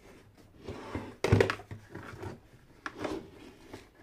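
Hard plastic carrying case being handled and shifted on a table: a few knocks and scrapes, the loudest a dull thunk a little over a second in.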